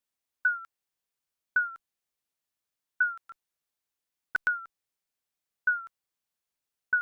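Digital countdown timer beeps: six short, identical electronic beeps, each dipping slightly in pitch, about once every second or so with silence between. A sharp click comes just before the fifth beep.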